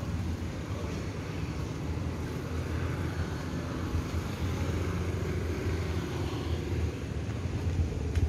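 Road traffic: cars and motorbikes running past, a steady low rumble.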